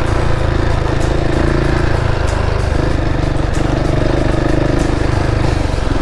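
KTM 690 Enduro's single-cylinder engine running steadily under way as the bike rides a rough dirt road.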